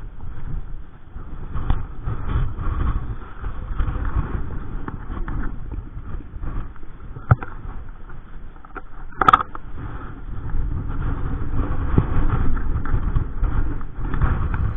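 Strong wind buffeting the microphone: a loud, steady low rumble, with two short sharp clicks partway through.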